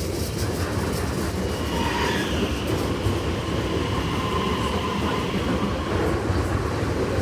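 HCMT (High Capacity Metro Train) electric multiple unit moving through a platform: a steady rumble of wheels and running gear with an electric whine. A tone falls in pitch about two seconds in, then steady whine tones hold for a few seconds.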